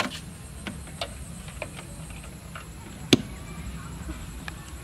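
An audio cable and its 3.5 mm jack being handled at a powered stereo amplifier: scattered light clicks and one loud pop about three seconds in, over a steady low hum.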